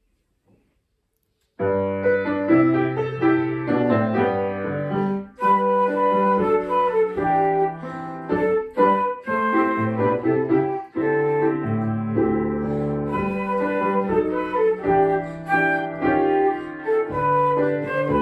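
Concert flute and grand piano playing a classical duet; the piano starts about a second and a half in, and the flute joins a few seconds later.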